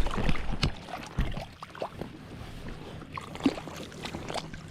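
Water splashing and lapping around a float tube, with scattered small knocks and clicks; loudest in the first half-second or so.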